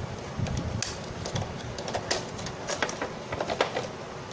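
Scattered sharp plastic clicks and rattles as the ink dampers are worked loose and pulled off an Epson L565 inkjet printer's print-head carriage.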